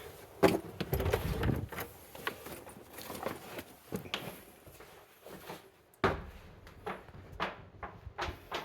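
Scattered knocks, clicks and rattles of equipment being handled, with a heavier rumbling clatter about a second in and a sharp knock about six seconds in.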